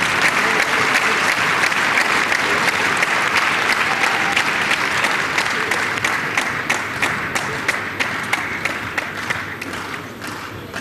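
Spectators applauding, a dense patter of many hands clapping that thins out and fades over the last few seconds.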